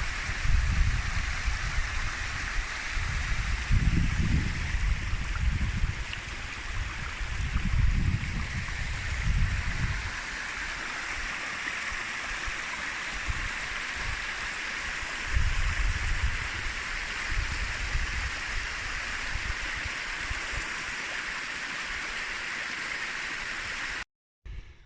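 A hill burn rushing and gurgling over rocks in a steady stream, with low rumbles coming and going in the first ten seconds and again around the middle. The sound cuts off abruptly near the end.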